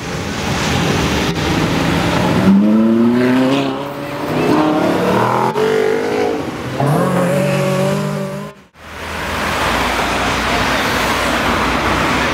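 Spyker C8 Aileron's V8 accelerating hard, its pitch climbing and dropping again through two or three upshifts. After a sudden cut about two-thirds in, a Ferrari 458 Italia's engine runs loudly as a steady rush with no clear pitch.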